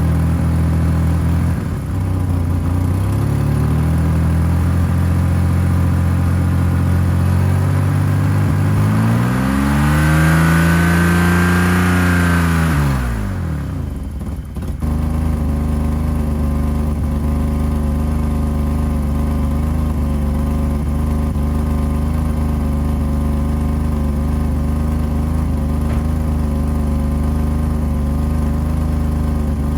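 1985 BMW 535i's M30 straight-six idling after a cold start, with an exhaust leak where the headers meet the catalytic converter. About nine seconds in it is revved once, rises and falls back, dips briefly about halfway through, then settles into a steady idle.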